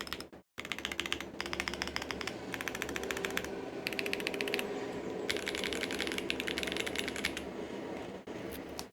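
Mechanical keyboard being typed on quickly: a dense run of keystroke clacks that briefly drops out about half a second in, then carries on.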